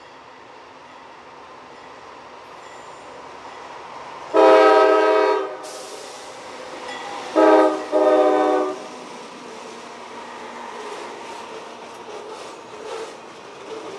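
A CSX freight train approaching and passing close by, its rumble slowly growing. About four seconds in, the lead diesel locomotive's air horn sounds a long blast, then two shorter blasts close together. The blasts are followed by steady wheel noise and the clatter of boxcars rolling past.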